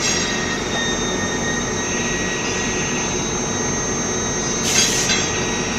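Induction heating machinery running steadily: an even wash of machine noise with several thin, high-pitched whines held on top, and a short hiss near the end.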